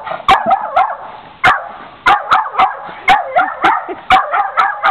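Jack Russell terrier barking in a quick string of sharp yaps, about two to three a second, with a brief pause about a second in. It is the dog's excited barking for the meat on the grill.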